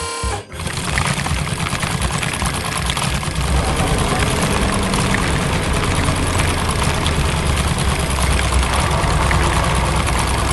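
Heavy excavator engine running, a loud steady low rumble with a dense clatter over it, as it breaks up and clears asphalt. It sets in about half a second in and grows a little louder about three seconds in.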